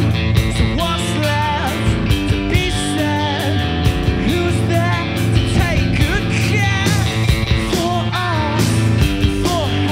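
Live indie rock band playing: electric guitar and drum kit, with sung vocals over them.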